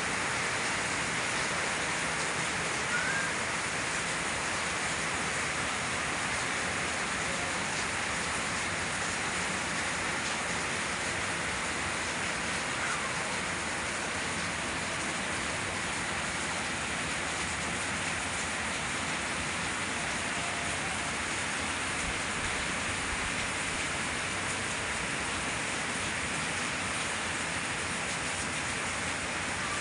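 Steady rain falling on garden plants and wet pavement, an even hiss with no breaks.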